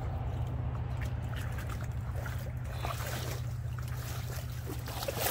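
Water sloshing and dripping as a wading angler lifts a hooked bass from the pond, over a steady low rumble.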